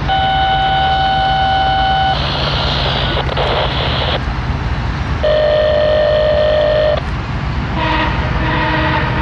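A diesel locomotive's air horn, here the approaching MARC commuter train's MP36, sounds several blasts: a long one at the start, a second long one past the middle, then shorter blasts near the end. A steady low diesel rumble runs underneath.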